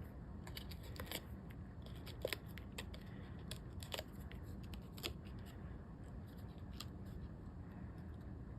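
Paper crafting handling: faint, irregular small clicks and rustles of cardstock pieces being picked up, pressed and stuck down with foam adhesive dimensionals.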